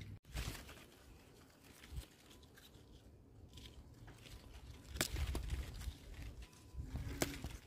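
Faint rustling of strawberry plants being parted and handled while berries are picked, with a few sharp clicks, the clearest about five seconds in and near the end.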